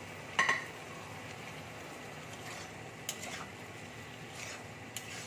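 Steel spatula clinking and scraping against a wok while chopped bottle gourd is stirred in hot oil, over a steady frying sizzle. One sharp ringing clink about half a second in, then a few softer scrapes.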